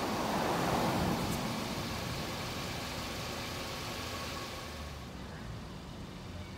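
A car passing on the street: a steady rush of road noise, loudest in about the first second and fading gradually over the following seconds.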